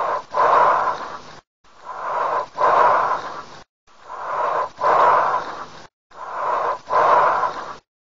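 Recorded lung sounds heard through a stethoscope: four hissing breaths, about one every two seconds. Each has a brief pause between the breath in and a louder, longer breath out, the pattern of bronchial breathing.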